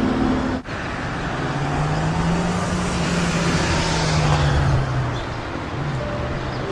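Road traffic noise along a harbourside street. A vehicle passes, its engine tone rising a little and then falling away, over a steady traffic hiss. The sound drops out for an instant about half a second in.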